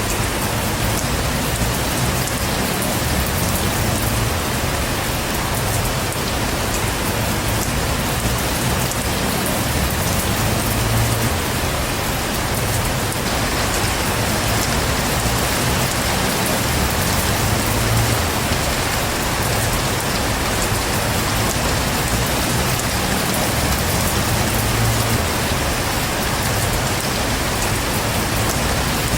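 Heavy rain falling steadily, a dense even hiss of rain on surfaces with a low rumble underneath.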